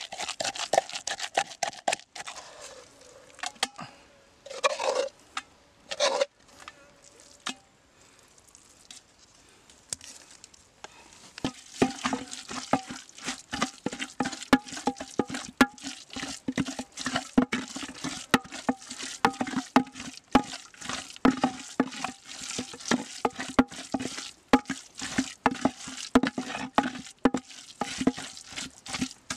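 Pestle pounding and grinding a chili paste in a mortar: quick knocks and scraping, a pause partway through, then a long steady run of rapid strokes.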